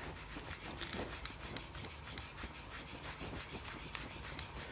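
Microfiber cloth rubbing multi-surface cleaner into sticky label residue on the back of a Sony MiniDisc Walkman MZ-N710. It is a faint, quick back-and-forth scrubbing with several strokes a second.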